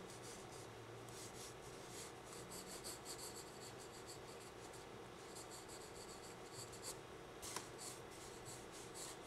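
Faint scratching of a pencil shading on sketchbook paper: quick strokes in clusters with short pauses between them. A single sharp click comes about seven and a half seconds in, over a steady low hum.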